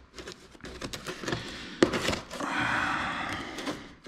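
Knife cutting through packing tape and cardboard on a shipping box, with small handling clicks. There is a sharp knock about two seconds in, then a longer steady scraping cut.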